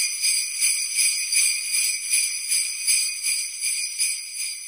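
Jingle bells shaken in a steady rhythm, about three shakes a second, a bright metallic jangle that grows fainter near the end.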